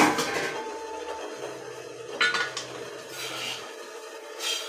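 Metal clatter as a pot lid or steel vessel is set down, then a flat steel spatula scraping and knocking in a metal kadai as cooked millet upma is stirred, with sharper clinks about two seconds in and near the end.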